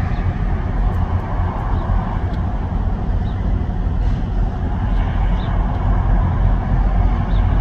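Steady low rumble of idling truck engines, with no birds calling.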